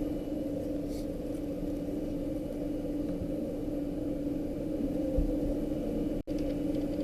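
Steady mechanical hum with a brief dropout a little after six seconds.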